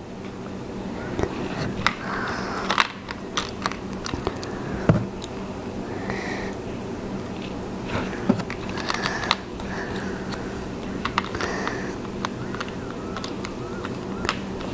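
Small plastic LEGO bricks clicking and tapping as they are picked up, handled and pressed together, in irregular short clicks over a steady low hum.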